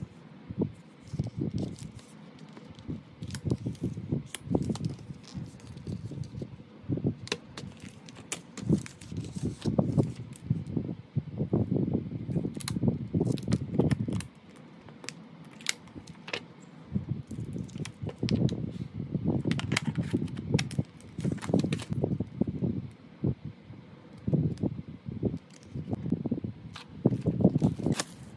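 Clear plastic packaging crinkling and rustling in irregular bursts as it is handled and opened, with many sharp clicks and taps among the rustles.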